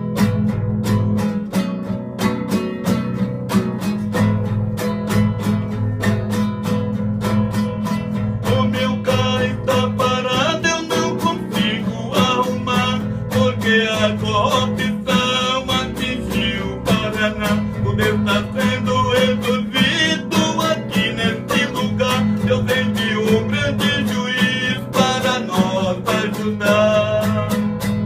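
Acoustic guitar strummed in a steady rhythm, with a man's voice starting to sing over it about eight seconds in.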